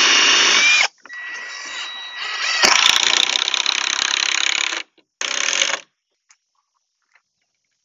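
Cordless drill running in bursts while pre-drilling holes and driving screws through plastic pallets into a timber frame: a high whine that winds up, a softer stretch, a harder, louder run, and one short burst. It stops about six seconds in.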